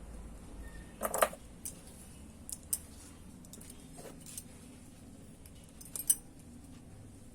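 Small metal tools or parts being handled: a few sharp metallic clinks and taps, the loudest about a second in, a few lighter ones in between, and another loud pair near the end.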